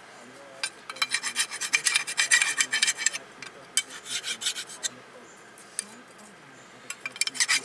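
Hand file scraping the front brake caliper bracket of a 2017 Honda Civic in quick back-and-forth strokes, cleaning rust from the surfaces the pad hardware sits on. A long burst of filing starts about a second in, a shorter one comes near the middle, and another starts near the end.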